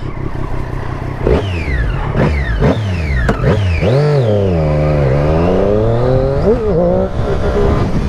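Triumph Daytona's three-cylinder engine revved in about four quick throttle blips, each falling back, then pulling away, the revs dipping and climbing again as the bike gets going.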